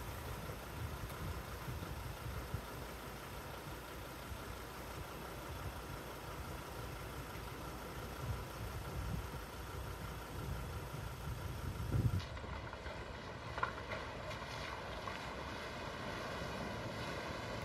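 A 4x4 vehicle driving on a dirt track: a steady engine and tyre rumble. The sound changes abruptly about twelve seconds in, after a thump.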